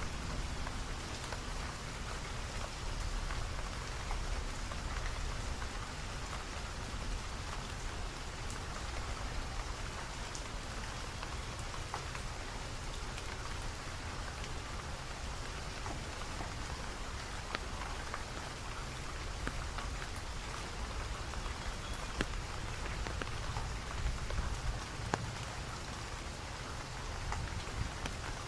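Steady rain falling, with single drops ticking sharply now and then over a low rumble.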